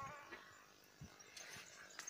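Newborn puppies nursing: a puppy's wavering whine trails off right at the start, then near silence with a soft low thump about a second in and a few faint high squeaks.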